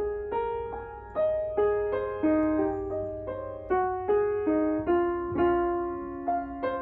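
Steinway & Sons grand piano played slowly: a melody of single notes and chords in the middle register, a new note about every half second, each ringing on and fading.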